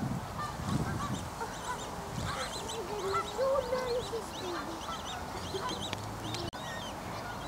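Canada geese calling: many short, overlapping honks and higher calls from a group gathered close by.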